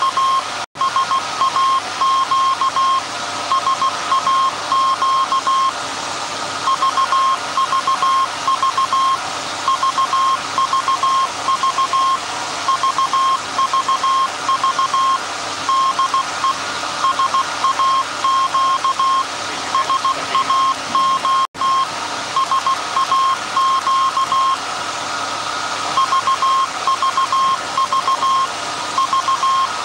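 Morse code from the SAQ transmission of the 1924 Alexanderson alternator, heard as a keyed beeping tone of dots and dashes at one steady pitch, over constant background noise. The sound drops out for an instant twice, just under a second in and about two-thirds of the way through.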